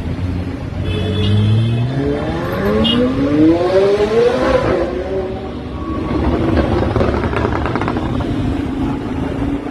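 McLaren 765LT's twin-turbo V8 accelerating, its note climbing steadily in pitch for about three seconds from about a second in. It then eases off into a rougher, lower running sound mixed with scooter and motorcycle engines in traffic.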